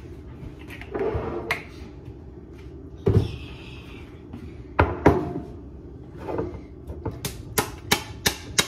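Kitchen handling sounds: a glass olive-oil bottle knocks a few times against the counter as it is set down, then a quick run of short clicks near the end as the cap of a small glass sauce bottle is worked open.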